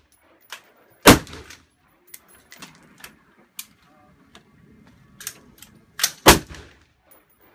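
Rifle shots on a shooting range: two loud shots about five seconds apart, each followed by a short echo, with fainter sharp cracks between them.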